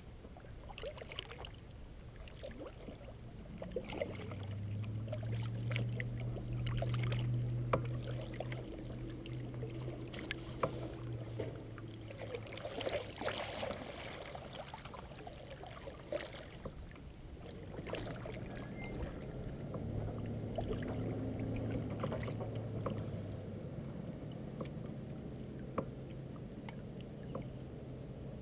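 A double-bladed paddle stroking through calm lake water from a Wilderness Systems Ride 115 sit-on-top kayak, with splashes, drips and small knocks of the paddle and gear. Beneath it a low hum swells and fades twice.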